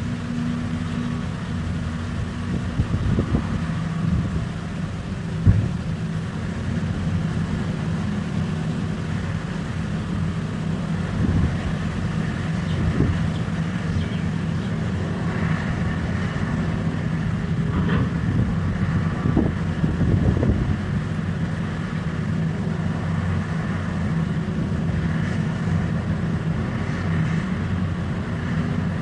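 Heavy diesel engine of mining machinery running steadily with a low hum, with a few short knocks and clanks.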